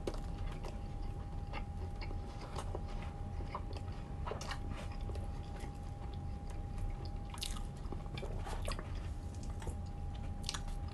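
A person chewing a mouthful of bacon cheeseburger close to the microphone, with small wet mouth clicks and smacks scattered throughout. Under it run a steady low hum and a faint constant whine.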